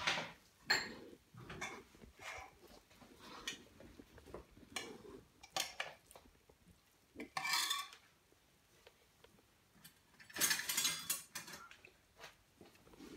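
Spoons clinking and scraping against dishes and pots as cooked food is served out, in scattered short knocks, with longer scrapes about seven and a half seconds in and again around ten and a half seconds in.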